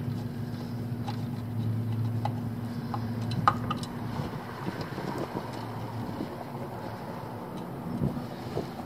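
Steady low hum of a running air-conditioning condensing unit, with light clicks of a screwdriver and wires being handled in its control box; one sharper click about three and a half seconds in.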